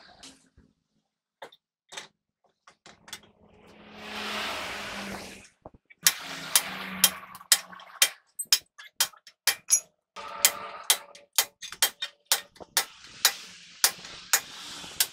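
Hand hammer striking steel at the bottom of a truck's drum-brake shoes, about two sharp metallic blows a second from about six seconds in, with a few lighter taps and a short rushing noise before.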